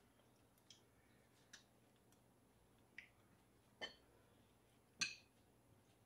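A few sharp clicks and taps of metal spoons and chopsticks against stainless steel bowls while eating, over an otherwise quiet room; the loudest tap comes about five seconds in.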